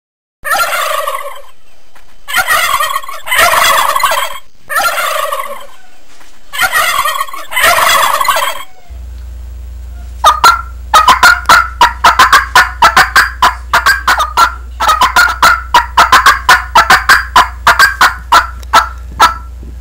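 A wild turkey gobbling several times, each gobble a rattling call about a second long. From about nine seconds in, a low hum comes on and a fast run of short, sharp calls follows, about four a second.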